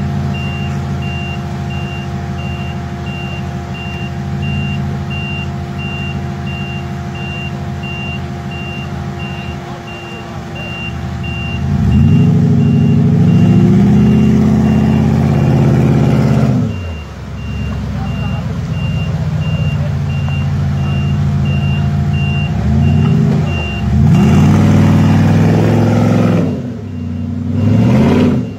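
Off-road buggy engine running steadily, then revving up hard in bursts, about twelve seconds in and again near the end, as the vehicle hauls itself up a steep bank. A repeated high electronic beep runs under it, with the rush of a river.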